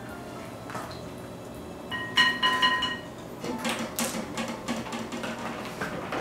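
Eggs cracked over a glass mixing bowl and vegetable oil poured in: a brief ringing tone about two seconds in, then a run of small cracks and clicks.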